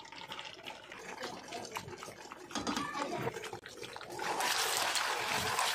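Eggs frying in hot oil in a nonstick pan, sizzling just after being poured in; the sizzle grows louder and denser about four seconds in.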